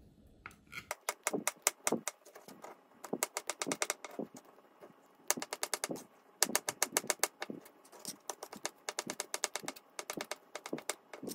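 Kitchen knife chopping canned peach halves into small cubes on a plastic cutting board: quick taps of the blade on the board in runs, starting about a second in, with short pauses between runs.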